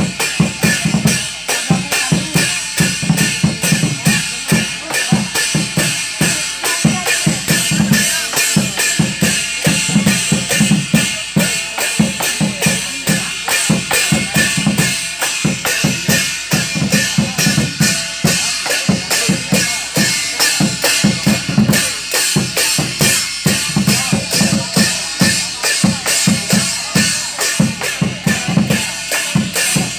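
Chinese temple ritual drumming: a fast, steady drumbeat with bright metallic ringing over it. It plays without a break and accompanies a spirit-medium trance ceremony.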